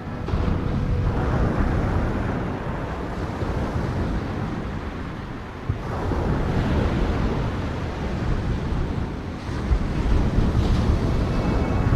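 Sea surf: waves breaking and washing in, one swelling up just after the start and another about halfway through, with wind rumbling on the microphone.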